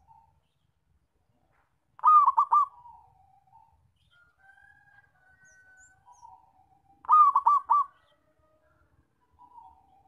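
Zebra dove (perkutut) singing its cooing song twice, about five seconds apart. Each phrase is a quick run of about four clipped notes, then a softer trailing coo. Fainter bird calls can be heard in between.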